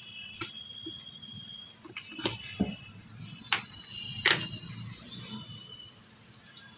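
Slotted steel spoon knocking against an aluminium kadhai, a handful of sharp knocks through the middle, over a faint low background hum. A faint high steady tone comes and goes.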